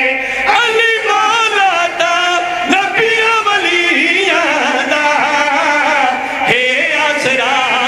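A group of men singing a Punjabi devotional qasida together through microphones, the young men's chorus joining the lead reciter in a melodic refrain.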